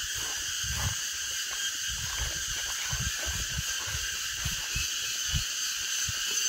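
Steady, many-pitched buzzing of a forest insect chorus, with irregular low thuds underneath.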